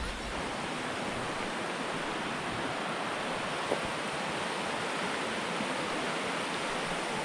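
Bode River water rushing, a steady, even noise.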